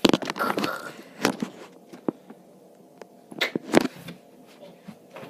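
Scattered thumps and rustling of bedding and plush as a boy wrestles a large stuffed toy dog on a bed close to the microphone. A cluster of knocks comes at the start, and the sharpest thump a little under four seconds in.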